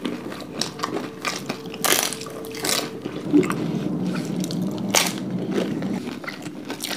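Close-up eating sounds: crisp pani puris and papdi chaat crunched between the teeth, with wet squishing from puris dipped in spiced tamarind water. Sharp crunches come about two seconds in, again just before three seconds and near five seconds, over a low steady hum.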